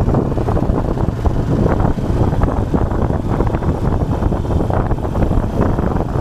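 Loud, steady wind buffeting on the microphone, a dense low rumble with no clear tone.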